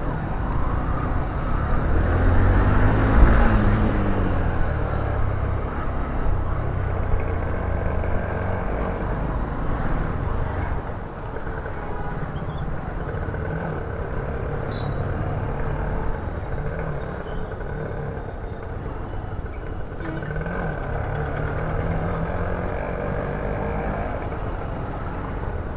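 Honda Shine motorcycle riding through city traffic: steady engine and road rumble, heavier for the first ten seconds or so and then lower and steadier.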